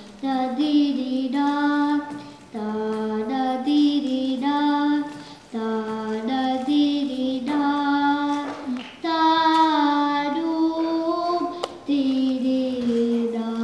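A young girl singing Hindustani classical vocal in Rag Yaman, in short phrases broken by brief pauses, to a harmonium she plays herself. Near the end she settles on one long, steady held note.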